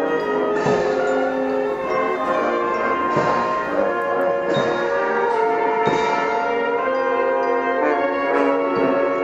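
Bells ringing, a new strike every second or two, their tones overlapping and ringing on.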